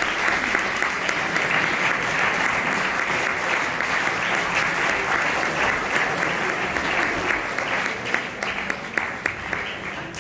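Audience applauding steadily, the clapping thinning into scattered claps and fading over the last couple of seconds.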